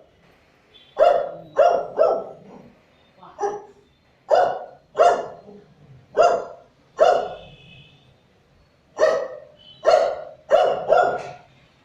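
A dog barking over and over, about a dozen sharp barks in uneven runs of two or three, with a pause of a second or so past the middle.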